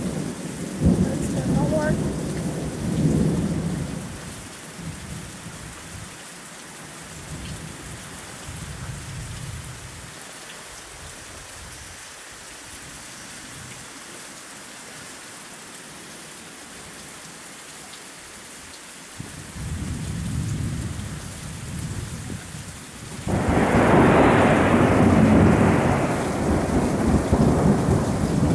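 Thunderstorm: heavy rain falling steadily while thunder rumbles. One rumble dies away over the first few seconds, a softer one comes about two-thirds of the way through, and a much louder, sharper peal breaks out suddenly near the end and keeps rolling.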